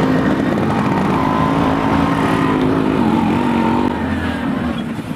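Motorcycle engine running, its pitch wavering and dipping with the throttle, a little quieter near the end.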